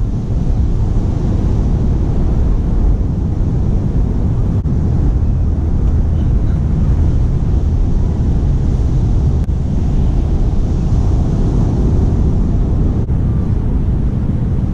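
Steady, loud wind rumble buffeting a GoPro Hero5's microphone, with ocean surf washing underneath.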